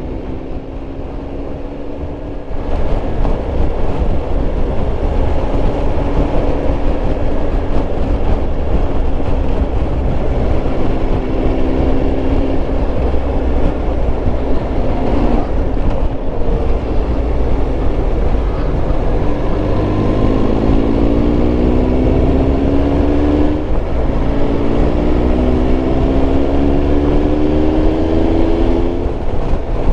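Triumph Tiger Explorer 1200's inline three-cylinder engine pulling on the road, its pitch climbing repeatedly as it accelerates through the gears and dropping back at each shift, over a steady low rumble.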